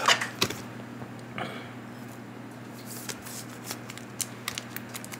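Pokémon trading cards being handled and flipped through by hand: light clicks and short rustles of card stock, coming thicker a few seconds in.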